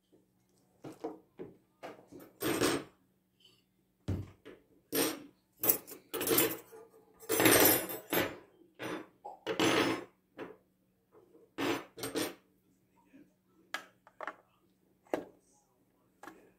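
Hand mixer's hard plastic body and steel wire beaters being handled on a table: an irregular run of short knocks, clicks and clatters. A beater is pushed into its socket near the end. The motor is not running.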